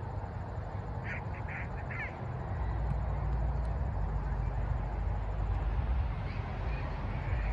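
Wind rumbling on the microphone, growing stronger a couple of seconds in, with a quick series of four short calls about a second in.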